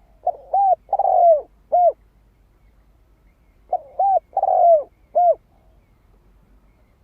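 Spotted dove cooing: two phrases about three and a half seconds apart, each of four notes that rise and fall in pitch, the third note longer and drawn out.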